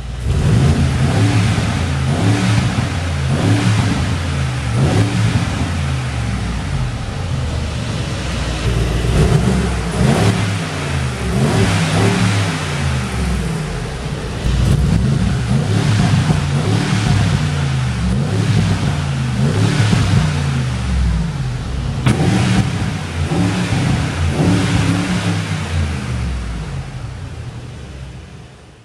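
Mercedes-AMG G63's twin-turbo V8 revved again and again through its side exhaust, each blip rising and falling in pitch, with a few sharp cracks between blips. The exhaust has its particulate filters deleted and Akrapovic front link pipes fitted. The sound fades out near the end.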